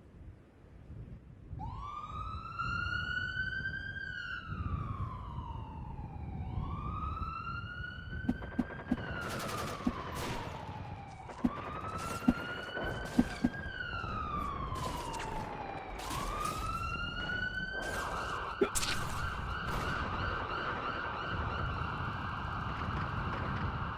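A siren wails slowly up and down, about once every five seconds, then holds one steady high note for the last few seconds. Over it come a scatter of single sharp shots, several in quick succession around the middle and one more late on.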